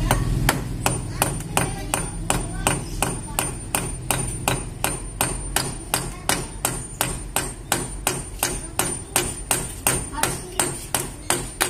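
Hand hammer striking steadily, about three blows a second, driving a fastener into the wall to mount a plastic electricity meter cover box. Each blow is sharp, with a faint metallic ring.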